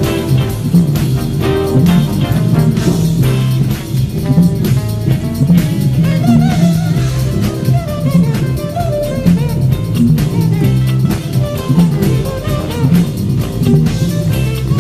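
Jazz-fusion band recording with drum kit, keyboards and horns, with an electric bass line played along with it.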